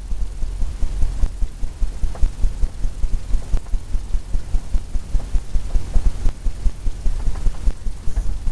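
A steady low rumble with soft, uneven throbbing pulses, about three or four a second, and no speech.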